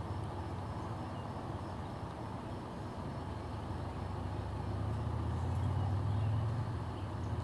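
Low, steady engine hum from a motor some way off, growing louder about four seconds in and peaking around six seconds, like a vehicle or boat passing.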